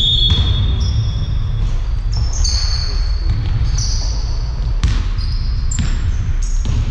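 Basketball game in a sports hall: sneakers squeaking briefly and repeatedly on the court and a basketball bouncing a few times in the second half, over a steady low rumble of the hall.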